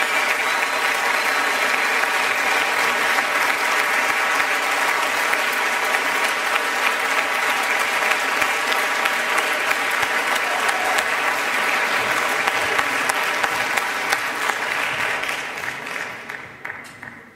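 Audience applauding steadily, the clapping thinning and dying away over the last couple of seconds.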